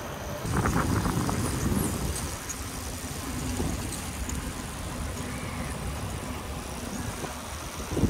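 Wind rush and tyre-on-asphalt rumble from a moving bicycle, picked up by a camera mounted low on the bike. It gets louder for a second or so near the start.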